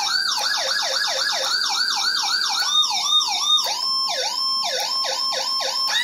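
Whelen HHS electronic siren through a CJB100BD siren speaker, sounding a fast repeating falling sweep at about four sweeps a second. About three seconds in it switches to a different tone pattern, with a steady held tone broken by quick sweeps, as the siren steps to its next program.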